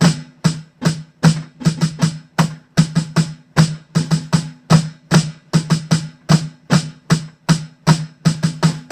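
Snare drum played slowly and evenly, about three strokes a second, with flams and flam drags (grace notes just ahead of the main stroke) and accented and unaccented notes mixed in.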